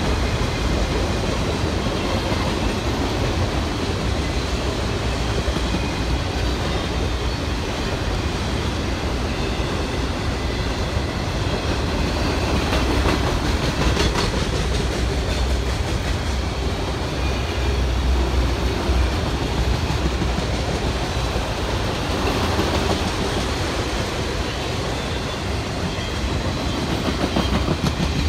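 Autorack freight cars of a passing freight train rolling by, their steel wheels running over the rails with a steady, continuous noise.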